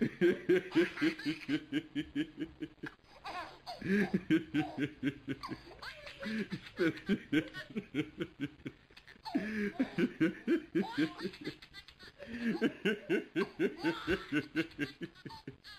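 Laughter sound effects: hearty, rapid ha-ha-ha laughing in about five bouts, each a quick run of evenly spaced pulses with short breaks between them.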